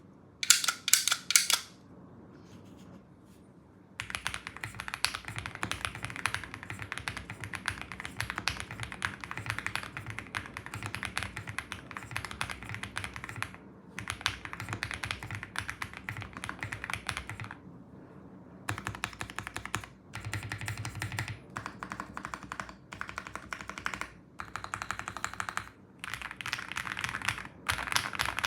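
Typing on a Meletrix Zoom TKL mechanical keyboard with lubed and filmed JWICK Yellow linear switches, PBT keycaps and a polycarbonate plate: rapid key clacks in runs. There is a short burst at the start, a gap of a couple of seconds, a long steady run, then shorter runs broken by brief pauses.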